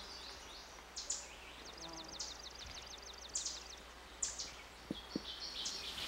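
Small songbirds calling: short, high, down-slurred chip notes about once a second, with a brief rapid trill of repeated notes in the first two seconds.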